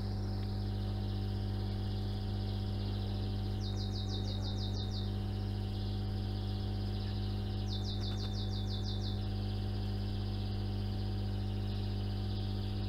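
Steady electrical hum and hiss of a recording setup's background noise, with no speech. Two short runs of rapid high ticks, about eight a second, come about four seconds in and again about eight seconds in.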